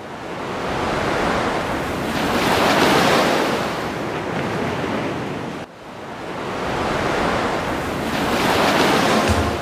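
Rushing, surf-like noise that swells and fades twice, with an abrupt break a little past halfway. Music begins right at the end.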